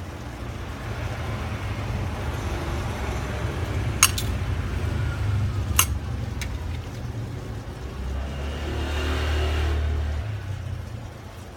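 A few sharp plastic clicks, two close together about four seconds in and two more around six seconds, as the tablet's display panel is pried away from its frame, over a steady low background rumble. A louder rushing noise swells and fades between about eight and ten seconds in.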